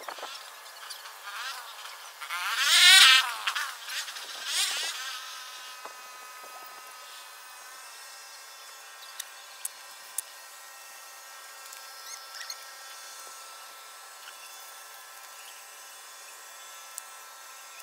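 A flying insect buzzing close past the microphone, rising and falling in pitch as it passes, loudest about three seconds in and again briefly near four and a half seconds, over a steady high insect drone.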